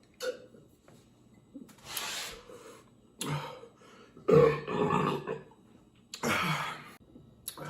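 Several burps from a beer drinker, belching up gas from carbonated beer, separated by short pauses and a breathy exhale. The loudest and longest burp comes about four and a half seconds in.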